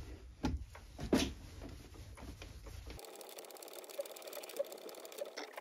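A small die in a tailstock die holder cutting a thread on a small steel bolt on a Myford ML7 lathe. There are a few sharp knocks and clicks over a low hum, then after about three seconds the hum stops and only faint light ticks are left.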